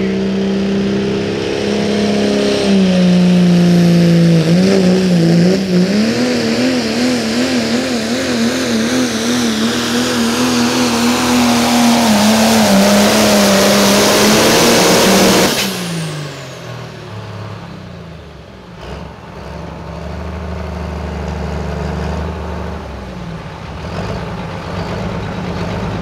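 Turbocharged Pro Stock diesel pulling truck at full throttle hauling the pulling sled, its engine note wavering quickly up and down with a hiss high above it. About 15 seconds in the throttle is cut suddenly and the engine winds down to a low idle.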